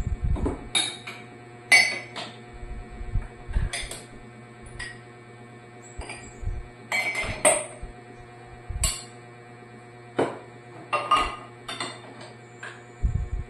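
Cups and dishes clinking and knocking as they are picked up and set onto a dish rack, in irregular separate strikes, over background music.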